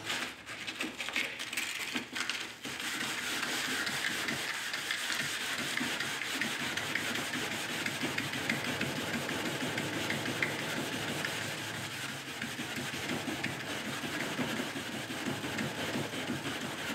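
A small abrasive pad scrubbing back and forth on the painted steel front fender of a Nissan Hardbody pickup, wearing through the fresh turquoise top coat to bring the black underneath through for a fake patina. The scrubbing is patchy for the first couple of seconds, then settles into a steady run.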